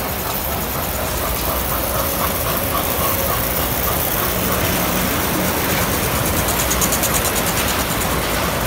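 Standard gauge tinplate model train running past on metal track: a steady rumble of its wheels and motor, with a quick run of clicking about seven seconds in.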